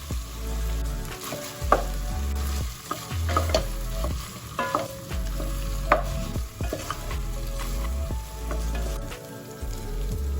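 Food sizzling in a pan as it is stirred, with a cooking utensil clicking and scraping against the pan several times.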